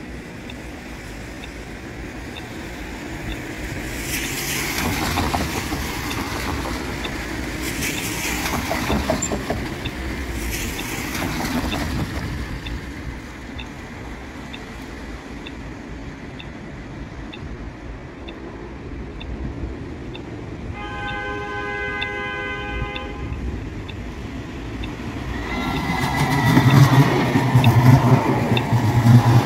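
Traffic swishing past on a wet road a few times, then an approaching light-rail tram sounds its horn once for about two seconds. Near the end the tram rolls past close by, its wheels rumbling on the rails with a high squeal.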